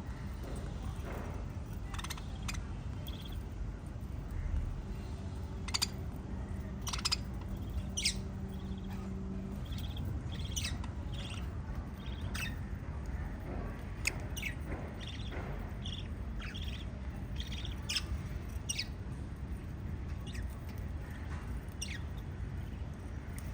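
Small pet parrots chirping: short, sharp high calls scattered irregularly, over a steady low background rumble.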